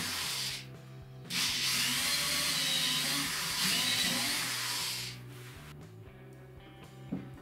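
Hand-held electric drill running as it drills into a wooden drawer front: a short run, a brief stop, then a longer run of about four seconds, with a wavering high whine. After it stops, background music and a light knock near the end.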